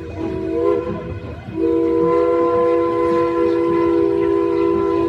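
Steam locomotive's chime whistle blowing, a chord of several tones: one long blast ends under a second in, and after a short gap a second long blast starts and is held.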